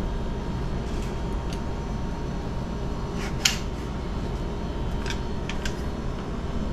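A steady fan-like hum of the room with a few faint, sharp clicks from handling a compact M4 electric airsoft rifle as it is readied to fire, the clearest about three and a half seconds in.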